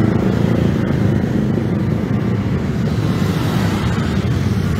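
Busy city road traffic: a steady rumble of passing vehicles, close to the microphone.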